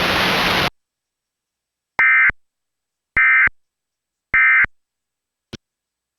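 Emergency Alert System SAME end-of-message data bursts: three short, identical buzzy digital tones a little over a second apart, signalling the end of the tornado warning broadcast. A steady hiss cuts off just before them, and a faint click follows near the end.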